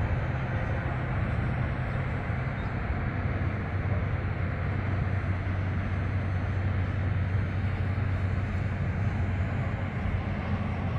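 Steady low rumble of distant road traffic, an even hum with no single event standing out.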